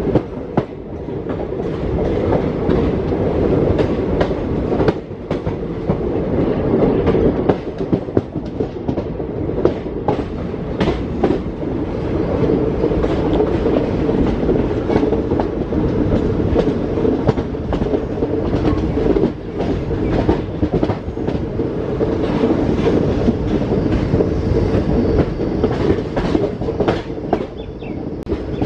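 Indian Railways intercity express passenger coach running on the line: a loud, steady rumble of wheels on rail with frequent clicks as the wheels pass over rail joints.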